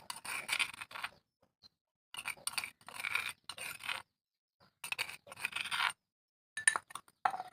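Close-up crunching of crunchy snacks being chewed, in three bursts of about one to two seconds each, with sharper crackles near the end.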